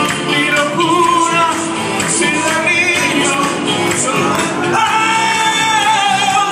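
Live Latin pop song sung into a microphone over amplified music with a steady beat, with a long held sung note in the last second and a half.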